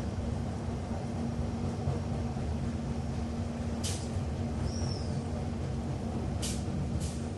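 Inside a Docklands Light Railway carriage: the steady rumble of the train running, with a steady motor hum. Short hisses come about four seconds in and twice near the end, with a brief high squeak in between.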